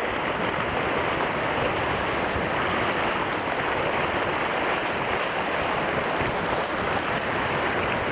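Sea surf washing against a rocky shoreline: a steady rushing noise with no distinct strikes.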